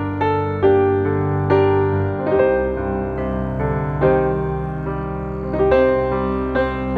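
Background music: a soft piano melody with notes struck about every half second over a sustained bass.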